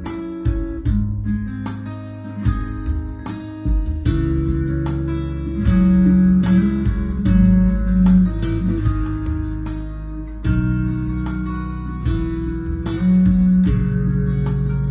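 Guitar music: plucked and strummed guitar notes over a steady, strong bass line.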